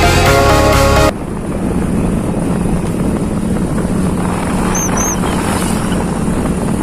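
Background music cuts off about a second in. A vehicle engine then runs steadily with a constant low hum and rushing noise. Two short high chirps come about five seconds in.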